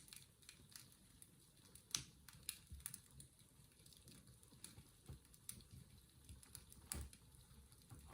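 Faint fireplace crackling: irregular small pops and snaps, the sharpest about two seconds in and again near the seventh second.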